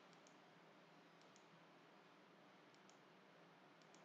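Four faint computer mouse clicks, each a quick pair of ticks, spaced about a second apart against near-silent room tone.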